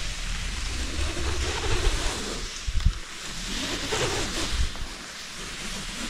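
Footsteps on a rocky cave floor, with a few low thumps, under a rushing noise that swells and fades twice.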